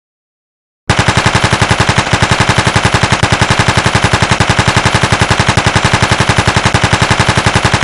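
Machine-gun sound effect: after about a second of dead silence, a loud, rapid, evenly spaced string of automatic-fire shots, about a dozen a second, without a break.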